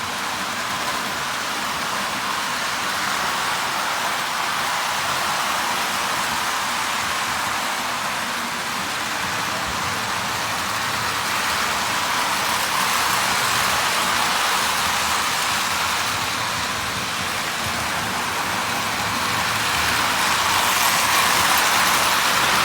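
Postwar electric toy trains running on their track: a steady rolling and rushing noise of wheels and motors that swells slowly as a train comes nearer.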